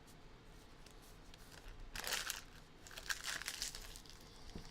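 Trading card packs being torn open, the wrappers crinkling in two short bursts from about halfway through.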